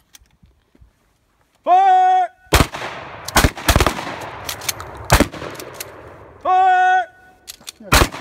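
Mossberg 500 pump-action shotgun firing about five loud shots, with fainter shots from other guns between them. A loud, steady half-second signal tone sounds twice, a moment before the first shot and again before the last.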